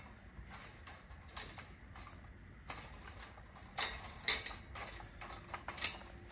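Scattered clicks and knocks of display-stand parts being handled and slid together, with a few sharper clacks about four seconds in and again near the end.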